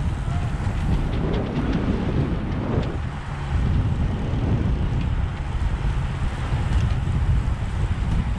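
Wind buffeting a microphone moving at road-bike racing speed: a steady, loud low rumble.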